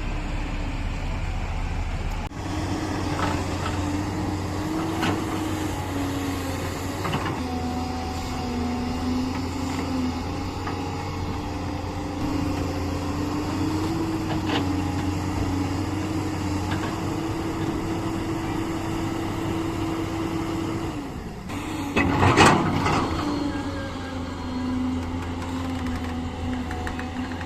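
Heavy diesel engine of an excavator or truck running steadily, its pitch rising and falling slightly as it works under load, with a loud burst of noise about 22 seconds in.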